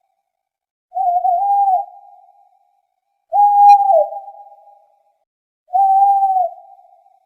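Owl hooting: three drawn-out, level hoots, each about a second long with a slight waver and a trailing fade, spaced about two and a half seconds apart.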